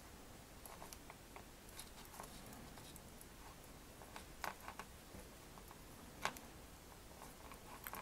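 Faint, scattered ticks and small clicks of fingers twisting a thin wire around a strand of 1 mm black elastic, with the sharpest click about six seconds in.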